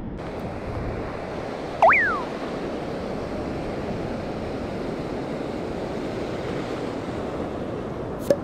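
Surf washing over the sandy shallows with wind buffeting the microphone, a steady rushing noise. About two seconds in, a loud short whistle-like tone dips, then slides up and falls away, and near the end there is a brief faint click.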